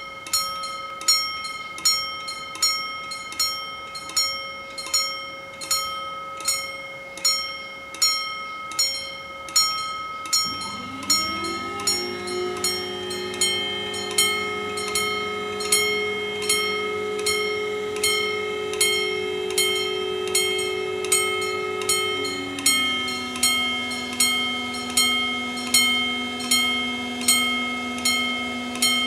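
Italian TD96/2 level-crossing warning bells striking over and over, about four strikes every three seconds, each strike ringing on. About ten seconds in, a motor hum starts as the barriers lower, and it drops to a lower pitch about twelve seconds later.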